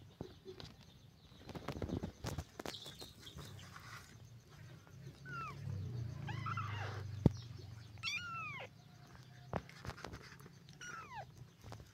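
Young kittens mewing: several short, high cries that rise and then fall in pitch, mostly in the second half, with a few sharp knocks among them, the loudest about seven seconds in.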